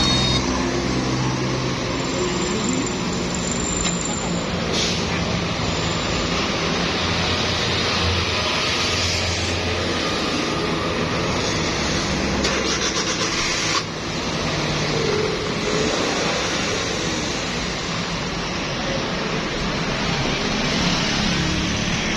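A vehicle engine running steadily at idle, a constant mechanical hum and hiss with no changes in speed.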